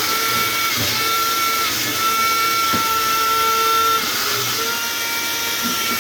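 Wall-climbing RC stunt car's suction fan running with a steady electric whine, its pitch stepping slightly up and down a few times.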